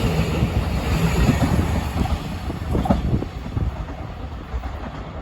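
Taiwan Railways EMU900 electric multiple unit running along the track, a dense rumble with irregular wheel knocks over rail joints, fading steadily as the train moves away.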